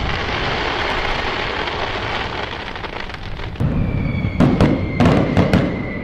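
Fireworks going off: a dense crackle fading over the first three seconds, then a deep boom about three and a half seconds in, followed by several sharp bangs and a faint whistle.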